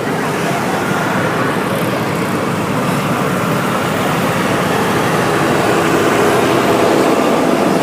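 Steady engine and road noise of heavy vehicles, growing gradually louder.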